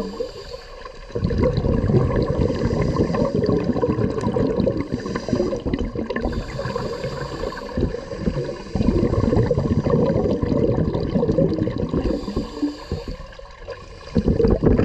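Scuba regulator breathing heard underwater: long bubbling rumbles of exhaled air, broken by quieter breaths in, about a second in and again near the end.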